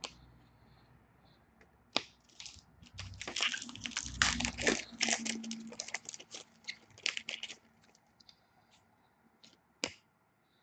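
Wrapper of an Upper Deck hockey card pack being torn open and crinkled: a dense run of crackling for several seconds starting about two seconds in. A few single sharp clicks from the cards being handled, one near the end.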